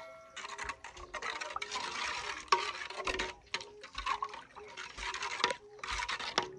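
A wooden spoon stirring fruit juice in an aluminium saucepan: liquid sloshing and the spoon scraping against the metal in repeated strokes, mixing in added sugar.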